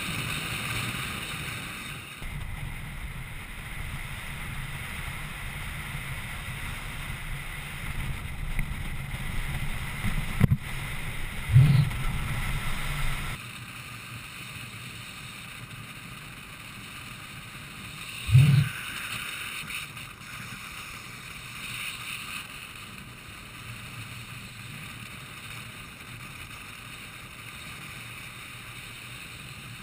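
Wind rushing over the microphone and inline skate wheels rolling on asphalt at downhill racing speed, a steady noisy rush. A few brief loud bumps or gusts stand out, the loudest about twelve and eighteen seconds in, and the rush gets quieter after about thirteen seconds.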